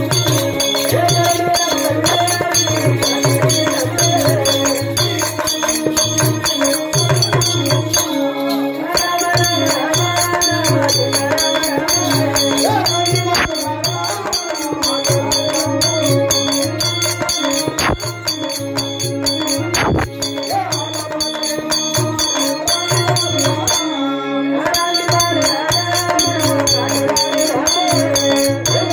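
Live Indian folk music for a village stage drama: hand drums beating a fast steady rhythm under a wavering melody line, with the drums dropping out briefly about 8 and 24 seconds in.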